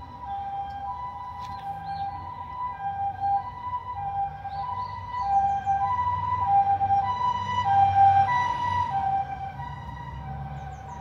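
Japanese ambulance's two-tone hi-lo siren, alternating between two pitches about once a second. It grows louder around the middle as the vehicle comes close, then fades near the end.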